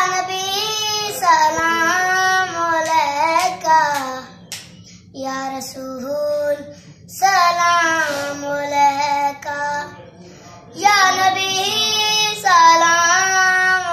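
A boy singing a qasida unaccompanied. He sings in long, ornamented phrases with held, wavering notes, with four phrases separated by short breaths.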